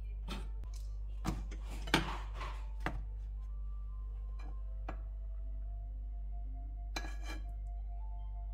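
A metal fork clinking and scraping on a non-stick frying pan while butter is spread and bread is laid in. Several sharp knocks, the loudest about two seconds in, with another short cluster about seven seconds in.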